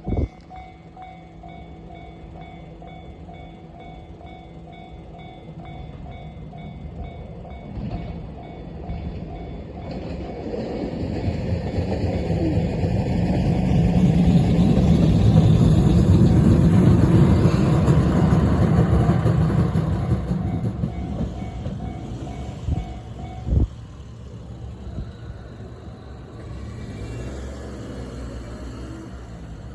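Japanese level-crossing warning bell dinging in a steady repeated rhythm while a Moka Railway train passes over the crossing. The train's rumble builds to its loudest about halfway through and then fades. The bell stops a few seconds before the end, and there is a sharp knock at that moment and another at the very start.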